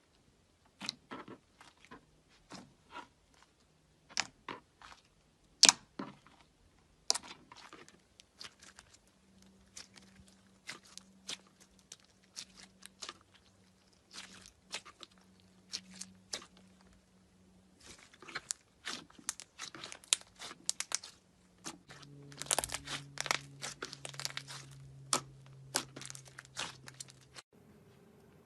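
Slime being squeezed and pressed by hand, giving irregular sticky clicks, pops and crackles that come thicker and louder in the second half.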